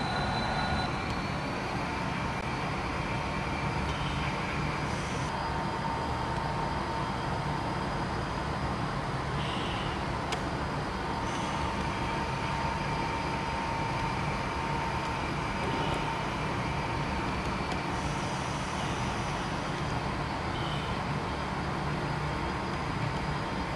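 HO scale model train running on the layout: a steady mechanical rumble with a thin steady whine above it.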